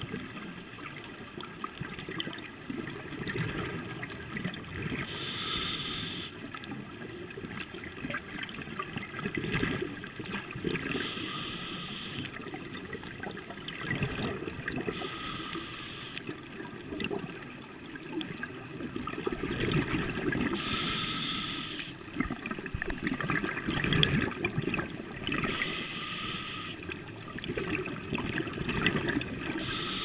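Scuba diver breathing through a regulator underwater: a hissing inhale about every five seconds, each followed by a long, bubbling exhale.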